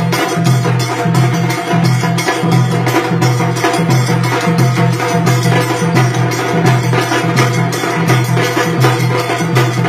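Tassa drum ensemble playing live: rapid, loud stick strokes on the tassa drums over a repeating beat from the big bass drum.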